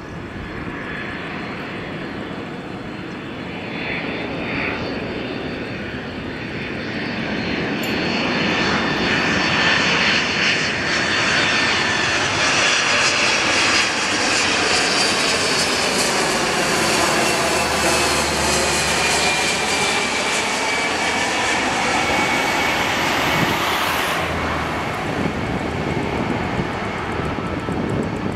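Boeing 767 airliner's twin turbofan engines on landing approach, growing louder over the first ten seconds as the jet closes in, then holding loud. A high engine whine slowly falls in pitch as the aircraft passes.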